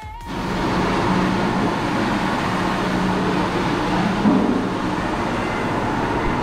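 Steady vehicle noise: a dense rumble with a faint low hum, starting just as a piece of music cuts off.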